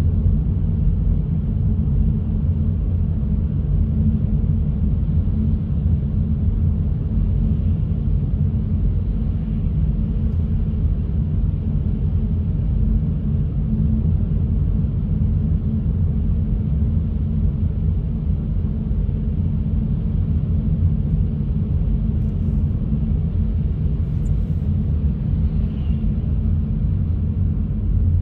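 Steady low rumble of a car driving: road and engine noise, even throughout.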